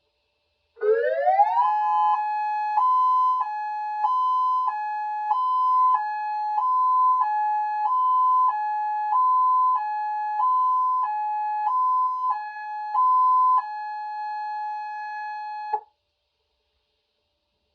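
Homemade dual-tone electronic siren sounding its hi-lo pattern. About a second in it sweeps quickly up in pitch, then switches back and forth between a higher and a lower tone, each held about two-thirds of a second. Near the end it holds the low tone for about two seconds and cuts off suddenly.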